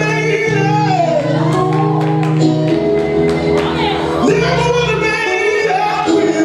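A live song with singing voices over long held keyboard chords and bass notes, amplified through the hall's speakers. The sung melody moves and bends above the sustained accompaniment, with a few light percussive ticks about two seconds in.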